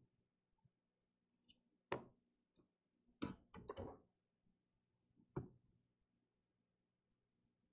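Faint clicks and taps from handling a laptop logic board and small tools on a workbench: one about two seconds in, a quick cluster of three or four a little past the middle, and one more a second and a half later.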